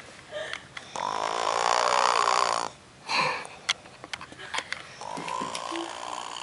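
A woman snoring in her sleep through a blocked nose: a long, loud snore about a second in, a short snort-like sound after it, then a second, fainter snore near the end.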